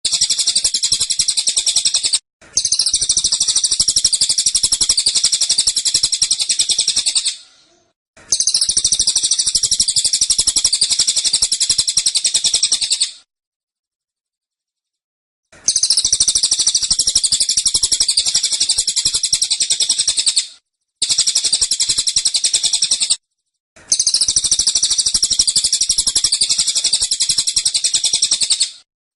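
Cililin singing its 'tembakan' song: dense, rapid, high-pitched chattering in six phrases of two to five seconds each, every phrase cutting off abruptly into a short silence, the longest gap about two seconds long near the middle.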